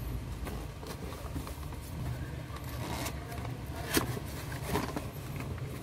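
Cardboard box being handled and opened by hand: flaps scraping and rustling, with a sharp crack about four seconds in and a smaller one soon after, over a steady low hum.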